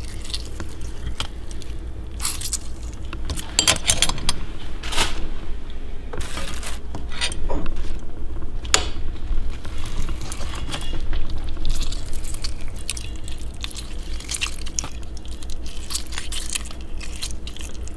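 Kitchen clatter: irregular clinks and knocks of utensils and dishes being handled on a counter, over a steady low hum.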